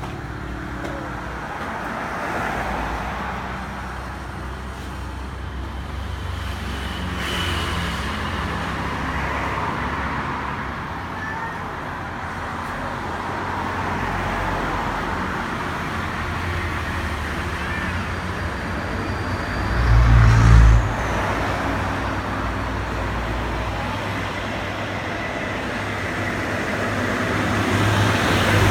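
Motor vehicle running with steady engine hum and road and traffic noise, swelling and easing, with one brief loud low thump about twenty seconds in.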